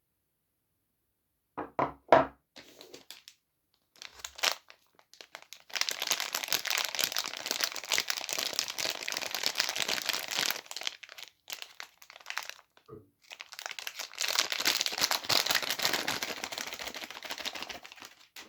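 Soap bar wrappers being crinkled and torn open by hand: a few sharp taps about two seconds in, then two long stretches of crinkling and tearing with a short pause between them.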